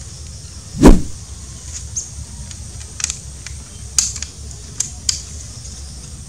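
Manlapat air rifle fitted with a spear and a fishing reel: one loud, sharp pop about a second in, then a few light clicks spread over the next few seconds.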